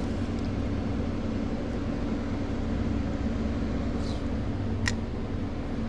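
Boat engine running steadily with a low hum; a single sharp click about five seconds in.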